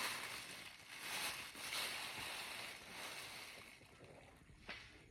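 Water running and splashing, swelling and easing in waves, typical of rinsing groceries under a tap; it dies away about four seconds in, and a short click follows near the end.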